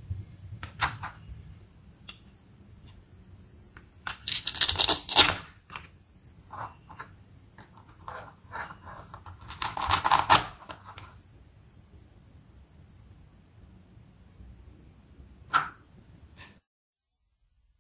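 Plastic velcro toy food pieces being pulled apart and set down on plastic toy cutting boards: light clicks and taps, two louder rasping bursts about four and ten seconds in, and a single sharp click near the end.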